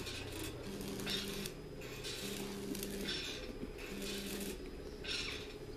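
Rhythmic rasping or scraping strokes, one roughly every two seconds, with a low hum that switches on and off between them.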